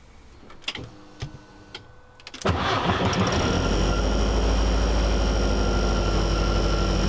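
A few light clicks, then the VW/Audi 1.8T inline-four turbo engine starts with a sudden jump in level about two and a half seconds in and settles into a steady idle.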